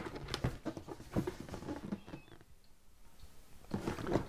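Cardboard box being handled and turned over: a run of light scrapes, taps and rustles from the flaps and sides, louder near the end.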